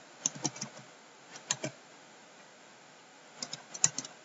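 Computer keyboard and mouse clicks in small clusters: several quick clicks about half a second in, two more near a second and a half, then a short flurry near the end.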